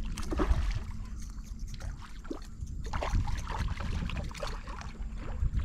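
Shallow water splashing and sloshing in irregular bursts, over a low rumble of wind on the microphone.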